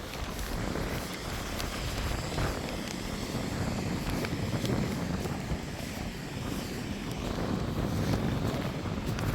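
Wind buffeting the microphone: a steady, noisy rush that is heaviest in the low end.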